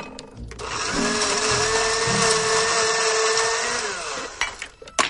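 A small electric motor switched on, whirring steadily with a high whine for about three seconds, then winding down and stopping.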